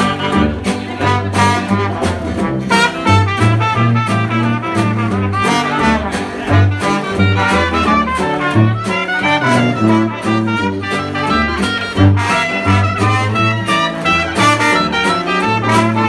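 Traditional New Orleans jazz band playing an instrumental passage: trumpet, trombone, clarinet and saxophone over sousaphone bass, guitar and washboard, with a steady swinging beat.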